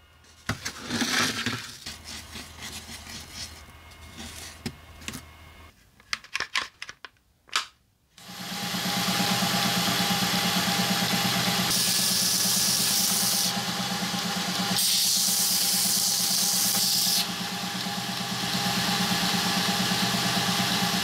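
Scattered small taps and clicks of handling at first. About eight seconds in, a bench belt sander starts and runs steadily with a low hum, with two stretches of louder hiss of a couple of seconds each.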